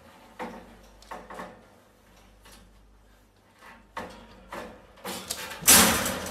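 Wire pet crate rattling in a string of short knocks and clinks as a furry animal pushes and squeezes against its bars, with a louder, longer rattle near the end.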